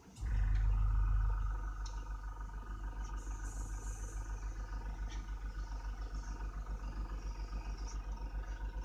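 Small piston air compressor for an airbrush switching on about a quarter second in, loudest for the first second, then running with a fast, steady pulse. A short loud knock right at the end.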